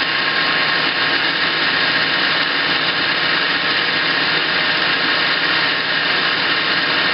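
Metal lathe turning down a stud under power feed: a steady, even running sound of the spindle and gearing with the tool cutting, several steady tones over a continuous hiss. It runs without labouring, a sign that the light 50-thousandths cut is well within the machine's capacity.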